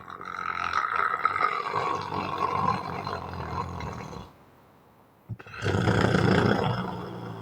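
A person snoring hard: one long snore of about four seconds, a short pause with a faint click, then another loud snore about two seconds before the end.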